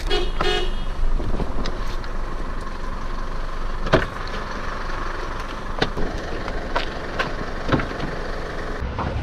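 Truck engine idling, with scattered clicks and knocks from the doors and handles as people climb in; the sharpest knock comes about four seconds in.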